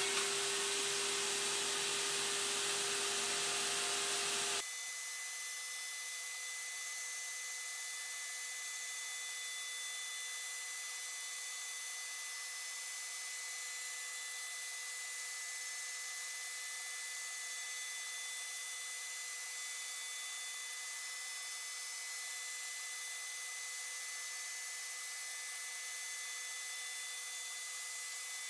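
CNC router spindle (a handheld router motor) spinning up to a steady high whine while it planes a spoilboard, with a shop vacuum running. About four and a half seconds in the sound cuts abruptly to a steady hiss with a thin high whistle.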